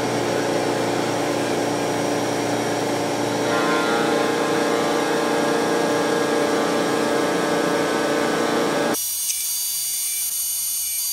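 Tormach 1100MX CNC mill's spindle running with a steady whine; about three seconds in, the end mill starts cutting a block of 7075 aluminium under flood coolant. About nine seconds in, the sound changes abruptly to a thinner, higher-pitched cutting sound.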